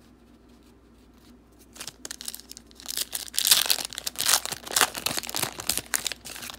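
Plastic foil wrapper of a Panini Contenders football card pack being torn open and crinkled in the hands. It starts about two seconds in as irregular crackling and is loudest over the second half.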